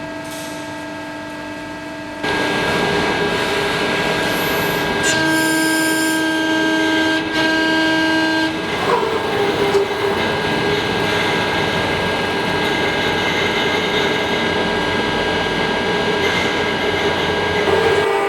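Hydraulic CNC press brake running: a steady machine noise that steps up about two seconds in. A held whining tone sounds from about five seconds in until about eight and a half seconds, as the machine works under load.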